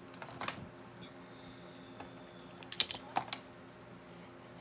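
Scissors cutting paper: a brief snip about half a second in, then a cluster of sharper snips around three seconds in, over a faint steady hum.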